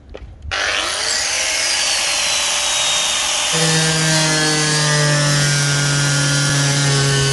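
Angle grinder with a cut-off disc cutting through the rusted sheet steel of a car's rear wheel arch along a marked line. It starts about half a second in and runs steadily from then on. Background music with long held low notes comes in about halfway through.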